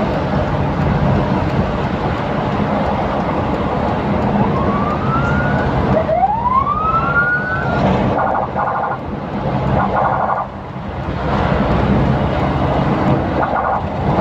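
Vehicle siren sounding over loud, continuous engine and road noise: two rising whoops about four and six seconds in, then several short bursts of rapidly pulsed tones.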